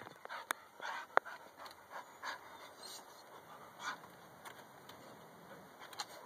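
Dog panting in short breathy bursts, one or two a second, while tied with its mate in a mating lock.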